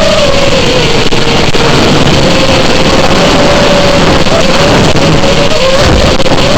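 FPV drone's motors whining over a loud rushing noise. The pitch dips a little about half a second in, then wavers up and down with the throttle.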